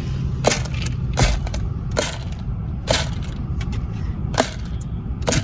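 A deer crunching feed pellets, chewing fast with sharp crunches about once a second, over the low rumble of an idling car engine.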